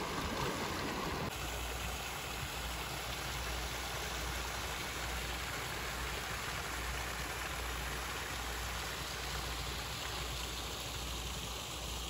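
Creek water rushing over rocks. About a second in it gives way to the steady splash of running water from a stone water-wall fountain, with a low rumble underneath.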